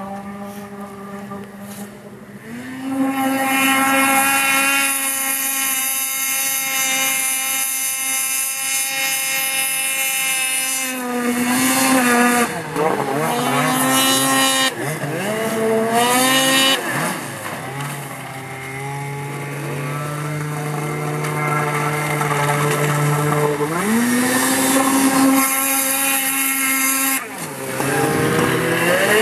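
Snowmobile engines running at high revs as the machines skip across open water: a high steady engine note, then several quick swoops up and down in pitch in the middle, a lower steady drone, and a climb again near the end.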